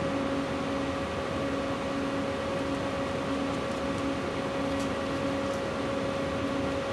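Steady hum and fan-like hiss of equipment running in the room, with a steady mid-pitched tone and a lower tone that comes and goes about once a second. A couple of faint ticks sound near the middle.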